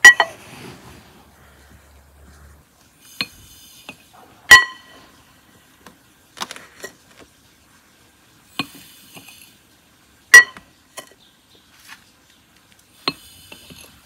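A drinking glass clinks sharply against a glass bowl as it scoops granulated sugar, three times, each scoop followed a few seconds later by a short hiss of sugar pouring into a glass jar of plums.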